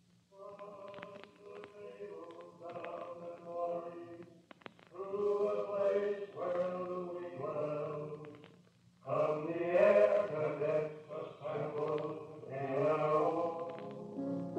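A choir singing held notes in three phrases that grow louder, with short breaks between them, the last and loudest starting about nine seconds in.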